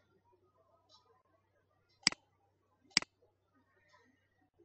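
Two sharp computer mouse clicks, a little under a second apart, about two seconds in, over a faint steady low hum.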